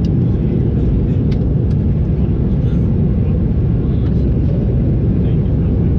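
Steady, low-pitched cabin noise of a Boeing 737-800 in flight: the rush of its CFM56-7B engines and the airflow, heard from a window seat inside the cabin.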